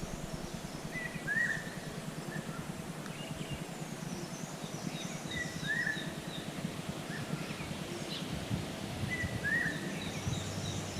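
Wild birds calling: one bird repeats a short whistled phrase, a flat note then a quick arched slur, about every four seconds (three times), while another gives runs of short high chirps, over a low steady outdoor rumble.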